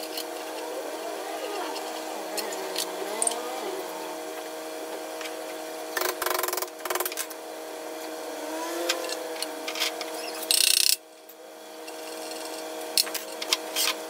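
Workshop handling noise: scattered clicks and knocks over a steady hum, with a brief loud hiss about ten and a half seconds in.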